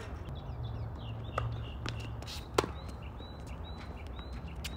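Tennis ball struck by rackets and bouncing on a hard court during a rally: a few sharp pops, the loudest about two and a half seconds in.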